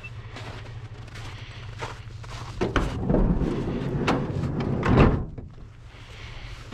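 A door on a Nissan NV200 Evalia van is worked: a click about two and a half seconds in, a few seconds of clatter, then a slam about five seconds in.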